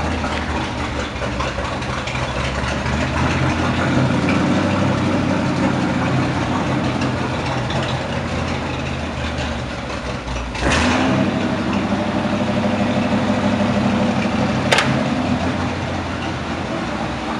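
Chevrolet pickup truck's engine idling steadily, getting louder about ten seconds in. One sharp click comes near the end.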